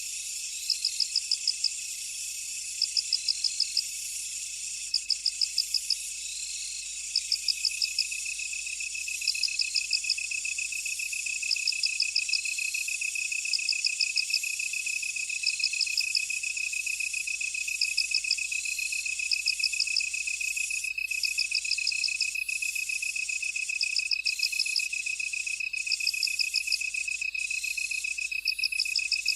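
A chorus of field insects: a steady, high, continuous trill, with a second insect chirping in bursts of about six quick pulses roughly every two seconds and a short rising note between the bursts.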